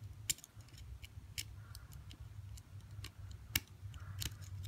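Small, sharp metal clicks, about five spread irregularly, as a flathead screwdriver pries at the E-clip on a Shimano Calais baitcasting reel, over a low steady hum.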